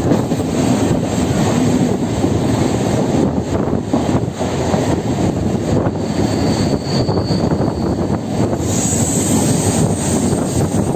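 A moving train: a loud, steady rumbling noise that goes on without a break.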